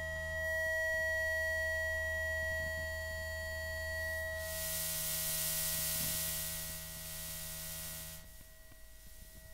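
Electromagnetic emissions from an Asus laptop's electronics, picked up by a loudspeaker coil used as an inductive pickup: a steady electronic whine of several pure tones over a low hum. About four and a half seconds in, a hiss joins it and cuts off about eight seconds in, and the whole sound then drops in level.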